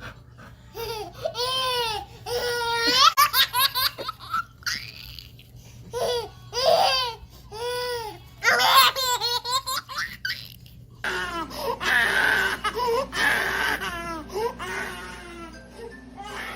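A baby laughing in repeated short bursts of high-pitched giggles and squeals.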